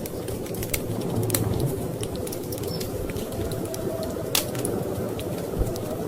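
Wood fire crackling, with irregular sharp pops and snaps, over a steady low rumble of storm wind.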